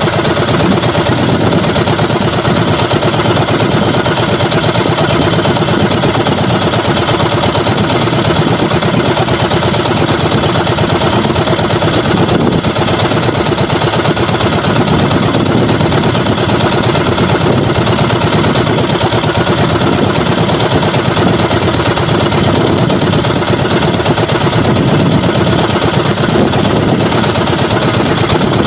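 Small outrigger fishing boat's engine running steadily with a fast, even chugging that does not change.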